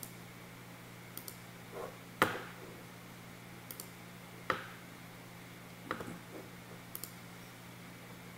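Computer mouse clicks and a few sharper taps on a desk, some clicks in quick pairs, over a faint steady electrical hum.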